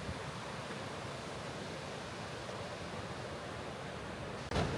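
Steady rushing of a partly frozen waterfall, an even hiss of falling water. Near the end there is a brief sharp rustle, and the noise gets louder.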